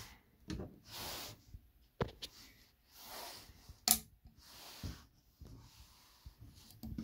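Switch clicks on a Glas-Col Large Capacity Mixer's control panel as the power rocker and pulser button are pressed, the sharpest click about four seconds in, with soft rustling between the clicks.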